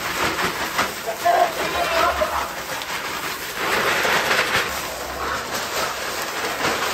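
Wood shavings pouring out of a plastic bag onto the ground, a steady rushing hiss with the rustle of the bag, heaviest a little past halfway.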